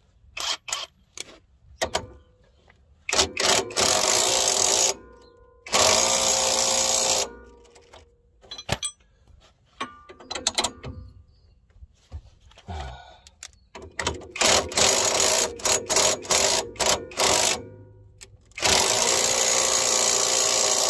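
Cordless impact wrench running in several bursts as it tightens the lower shock absorber bolt on a car's front suspension. The bursts are separated by clicks of hand tools, and a longer unbroken run starts a couple of seconds before the end.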